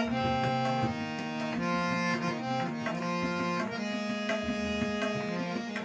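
Harmonium playing a melody of held reed notes, accompanied by tabla.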